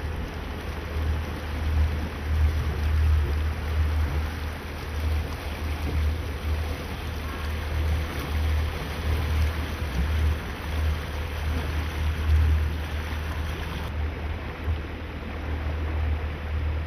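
Motorboat under way, its engine running steadily with water rushing past the hull. Gusting wind on the microphone adds an uneven low rumble.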